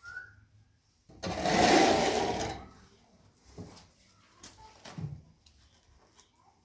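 Steel plastering trowel scraping and spreading wet plaster across a wall: one long loud stroke about a second in that fades out, then a few faint short scrapes and taps of the trowel.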